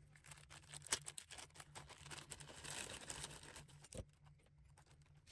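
Faint crinkling of a small plastic bag being handled and emptied, with light clicks and taps as loose LEDs and resistors spill out onto a silicone mat. One sharper knock about four seconds in.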